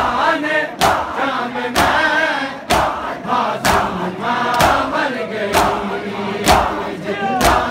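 Crowd of mourners doing matam, slapping their bare chests in unison about once a second, each stroke a sharp clap. Between the strokes many men's voices chant a noha lament together.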